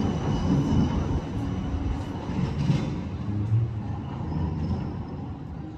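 Low-floor city tram running slowly along street track with a low rumble, amid street background noise. The sound fades down near the end.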